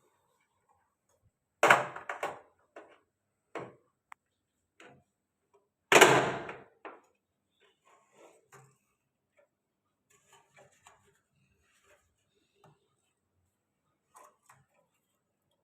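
A few knocks and clatters, the two loudest about two and six seconds in, with light clicks and taps in between.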